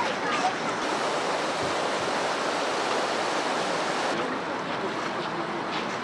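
Steady rush of a shallow river flowing over stones, with a slight change in tone about four seconds in.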